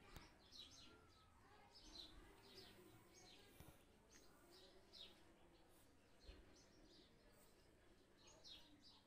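Faint birds chirping, short high chirps repeating about twice a second over a soft background hiss.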